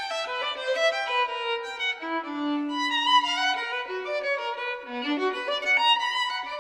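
Background music: a violin melody, with one longer held low note about two and a half seconds in.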